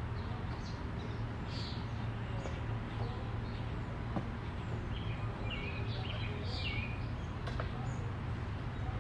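Small birds chirping off and on, most busily a little past the middle, over a steady low outdoor rumble, with a few faint clicks.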